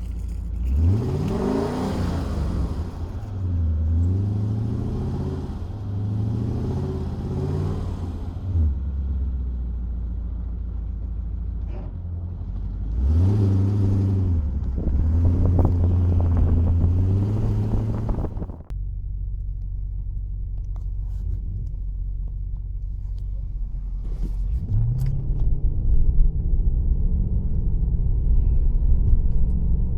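Audi V8 engine being revved several times, its pitch climbing and falling back between blips, with short spells of steady running in between. About two-thirds of the way through the sound changes suddenly to a low, steady rumble, with one more brief rise in pitch a little later.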